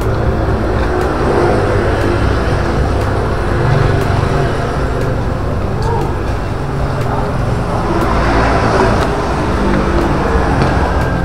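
Steady low outdoor rumble with faint voices in the background.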